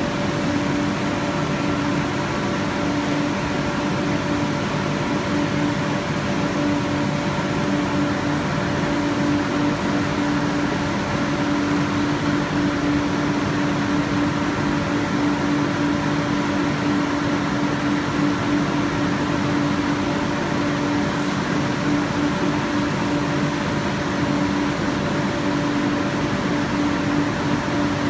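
Conveyorised photo-etching machine running steadily: an even hum with one clear steady tone over a constant rushing noise.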